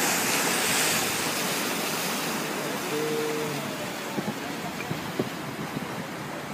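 Sea waves washing on a rocky shore with sea wind: a steady, even hiss that eases slightly over the seconds. A short faint tone sounds about three seconds in.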